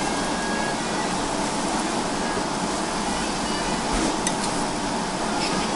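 Steady sizzling hiss of meat cooking on a yakiniku table grill, with a faint click or two about four seconds in.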